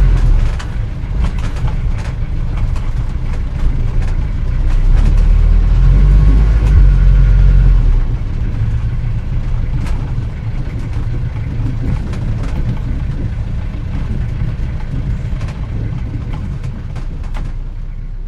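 Old car from around 1940 driving, its engine running with a low rumble and frequent ticks and rattles. It swells for a few seconds just before the middle, then settles and eases off toward the end.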